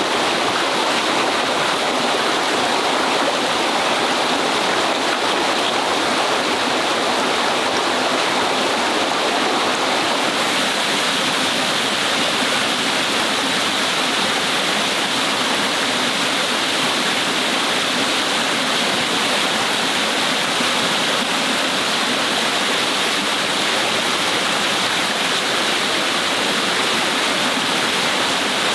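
Small rocky forest stream running over stones and down a little cascade: a steady, unbroken rush of water.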